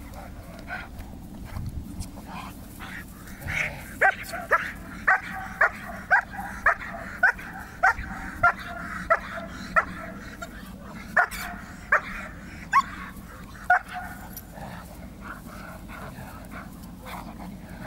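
German Shepherd barking at the helper in a hold-and-bark during protection training: a run of about fifteen loud, sharp barks, nearly two a second, starting about four seconds in and stopping near the fourteen-second mark.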